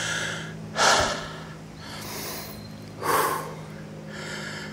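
A hiker breathing hard close to the microphone: heavy, puffing breaths, the loudest about a second and about three seconds in, winded from a strenuous climb.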